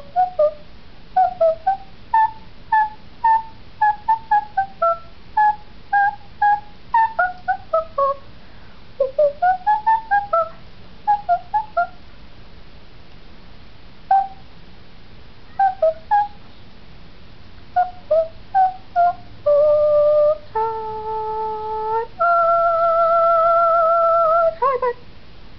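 High-pitched, whistle-like notes in quick runs of short beeps that hop up and down in pitch, with pauses between runs; near the end come three long held tones, each lower or higher than the last, the final one wavering.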